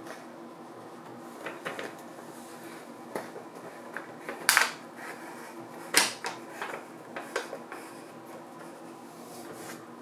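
Plastic clicks and rattles from a LEGO Ideas 21327 Typewriter as a sheet of paper is fed into the platen and the platen knob is turned. There are two louder clatters, about four and a half and six seconds in.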